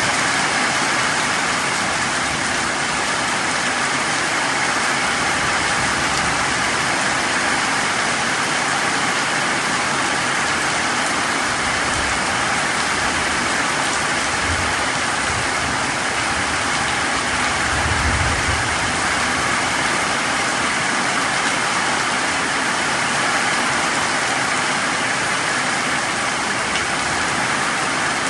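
Heavy rain pouring steadily onto leaves and muddy ground, a constant hiss, with a few brief low rumbles in the middle.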